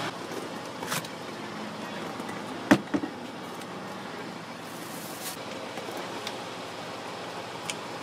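Plastic centre console box in a car being opened and a drink bottle taken out: a sharp knock about three seconds in with a lighter one right after, and a few light clicks, over steady vehicle background noise.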